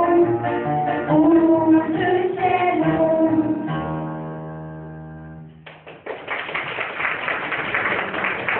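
Children's choir singing a song with instrumental accompaniment, ending on a held chord that fades out about five and a half seconds in; the audience then breaks into applause.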